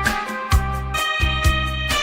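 Electronic keyboard music: a sustained melody over a steady bass and drum-machine beat.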